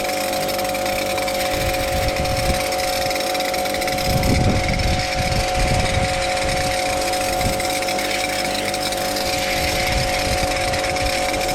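Pressure washer running steadily with a constant motor whine and water spraying, with rougher low rumbling surges for a couple of seconds near the middle.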